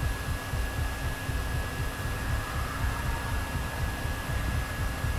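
A cooling fan running close to the microphone: a steady whirring hiss with a thin high tone, over an uneven low rumble.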